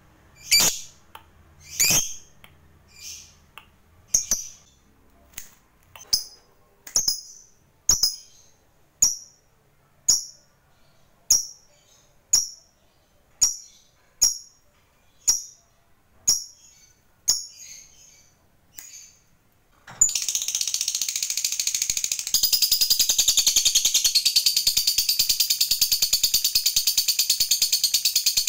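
Lovebird calling: sharp, high single chirps about once a second. About two-thirds of the way in, these give way suddenly to a continuous, very rapid chattering trill, the long 'ngekek' that lovebird keepers prize.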